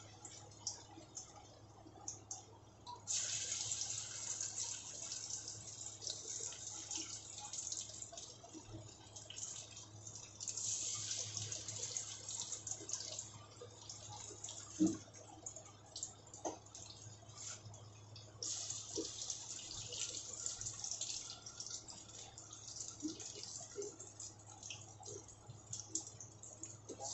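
Sabudana vadas deep-frying in hot oil in a steel kadai: a steady crackling sizzle that swells louder three times.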